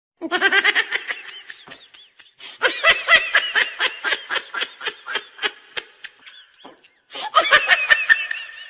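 High-pitched, rapid laughter from a meme sound effect, in three bursts of quick pulsing giggles with short breaks about two seconds in and near the end.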